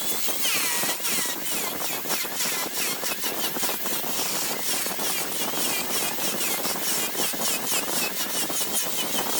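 A large wood lathe turning a sapele blank while a turning tool cuts it, with a rapid, even ticking of interrupted cuts, about four or five a second, and short high falling squeaks from the tool.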